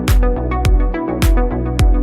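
Electronic house music with no vocals: a steady four-on-the-floor beat of deep kick drums, about two a second, with sharp high percussion hits over sustained synth and bass notes.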